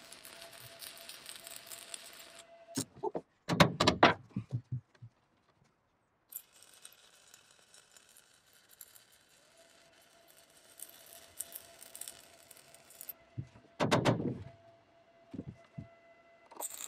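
Stick welder arc crackling and hissing as a 7018 rod lays tacks on a steel patch plate, in three runs: a short one at the start, a longer one in the middle, and a fresh strike just before the end. Between the runs come clusters of sharp knocks and clanks, around four seconds in and again around fourteen seconds.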